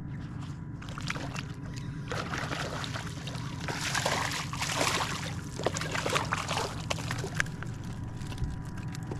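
Hooked speckled trout splashing and thrashing at the surface beside a kayak, densest about four to five seconds in, with water sloshing against the hull.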